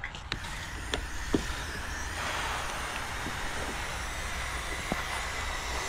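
Steady hum and hiss of pressure-washing equipment running, with a few faint clicks and crinkles of plastic tape being handled.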